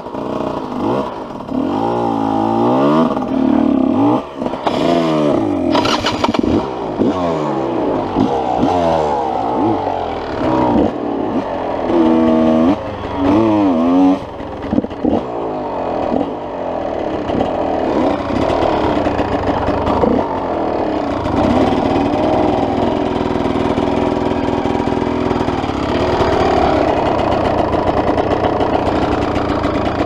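Dirt bike engine revving up and down again and again, its pitch climbing and falling about once a second over the first half, then running at a steadier speed.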